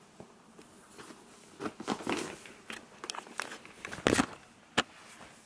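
Black leather handbag being handled and moved about: rustling and a few sharp clicks from the leather, strap and metal clasp, loudest about four seconds in.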